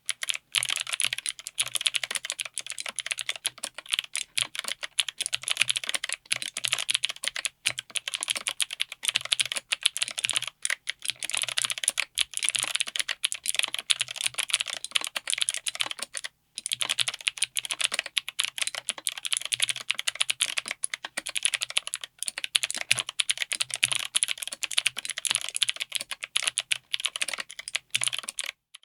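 Fast typing on a mechanical keyboard fitted with Akko Creamy Cyan clicky switches, mounted on an FR4 plate in an aluminium case. The keystrokes are a dense, bright stream of clicks, pausing briefly twice.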